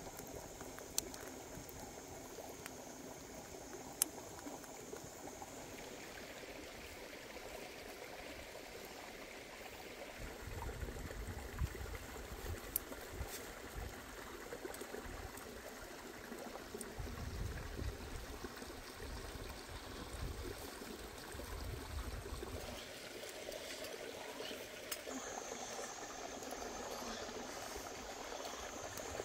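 Faint, steady running water of a small stream, with a thin high steady tone over it in the first few seconds and again near the end, and a few light clicks.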